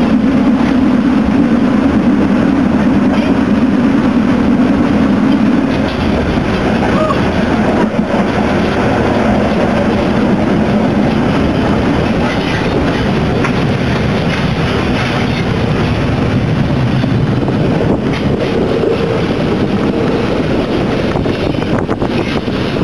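Steam locomotive on the move, heard from inside its cab: a loud, steady mix of steam, running gear and wheels on the rails. A low steady drone in it eases off about six seconds in.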